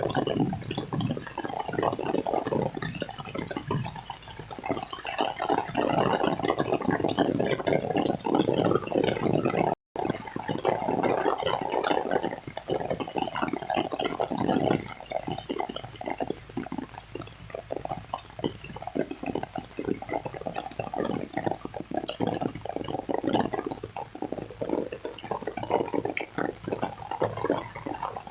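Heavy rain pouring down: a dense patter of drops and splashing water, heavier at first and thinning somewhat after the middle, with a brief complete dropout about ten seconds in.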